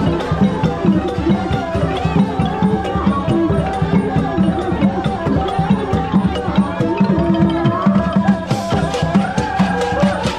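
Traditional music with percussion keeping a steady, even beat under a shifting melody.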